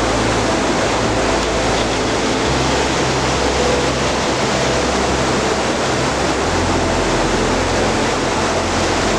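Waterfall: a steady, loud rush of falling water, close by.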